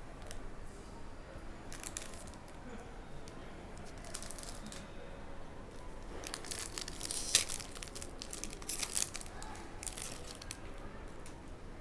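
Trading card pack wrapper crinkling and being torn open in several short bursts.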